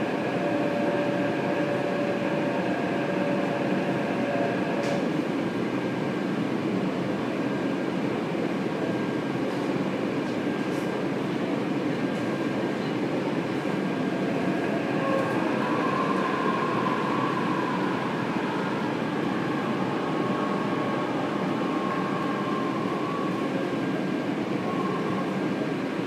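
Taipei Metro Tamsui–Xinyi Line train heard from inside the car as it runs along a station platform and pulls in. There is a steady rolling rumble with motor whines: one tone stops about five seconds in, and a higher whine comes and goes in the second half.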